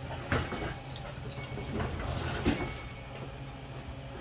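Clunks and rattles from a small Honda XR70R dirt bike being wheeled and handled by hand, with a sharp knock about a third of a second in and a louder one about two and a half seconds in.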